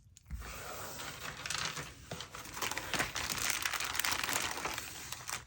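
Small plastic bags of craft buttons crinkling and rustling as they are handled.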